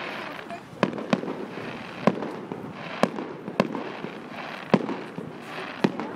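Aerial firework shells bursting: a string of sharp bangs, about one a second, over a steady hiss.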